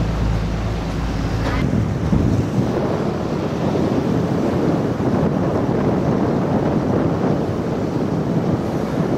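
A motor yacht's engines drone steadily for under two seconds. Then a loud, fluttering rush of wind and water noise takes over while the boat is under way.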